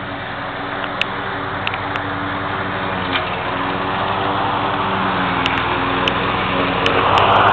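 An engine running steadily, growing louder toward the end as a rush of noise swells in, with a few sharp clicks scattered through.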